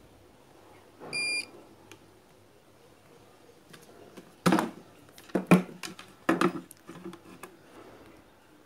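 Multimeter continuity buzzer giving one short, high beep about a second in: the probes are touching points that connect, the sign of a path to ground or a short on the board. From about four and a half seconds, a run of louder knocks and clatters.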